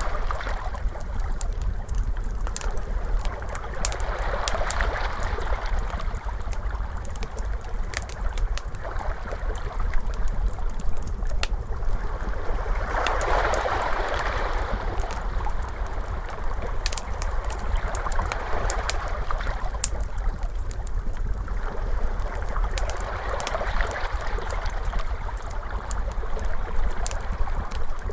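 Crackling fire, with sharp snaps scattered throughout, over ocean waves washing in about every four to five seconds and a steady low rumble.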